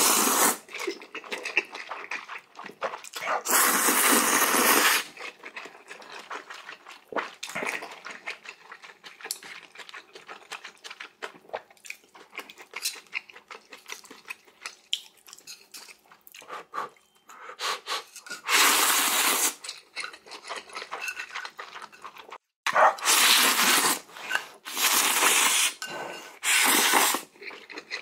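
Noodles being slurped loudly in about five long slurps of a second or so each, with clicking of chopsticks against the bowl in between.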